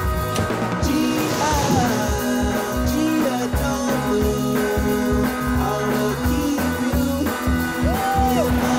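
Background song with a steady beat, guitar and a singing voice.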